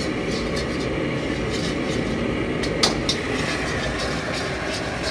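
Commercial gas wok burner running with a steady rushing noise while a metal utensil scrapes in repeated strokes around a stainless steel wok, stirring butter and flour. One sharp metallic knock about three seconds in.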